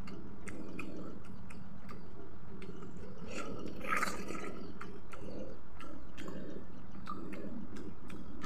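Close-up chewing and wet lip-smacking as a person eats pork and rice, with frequent small mouth clicks and a louder bite about four seconds in.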